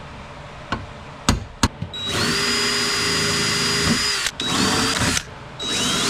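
Power drill drilling out the steel rivets that hold a car's power window regulator to the door. A few sharp clicks come first. Then the drill runs for about two seconds, its whine rising to a steady pitch, and follows with two shorter runs.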